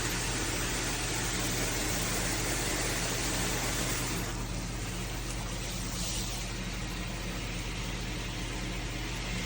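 Water spraying from a handheld high-pressure shower head, a steady hiss that turns duller about four seconds in.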